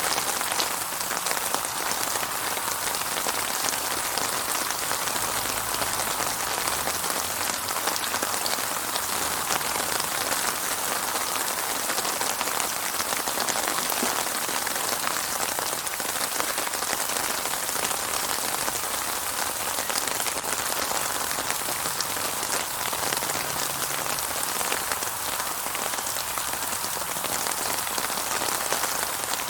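Steady rain falling on a surface, a dense even hiss of many fine drops with no thunder.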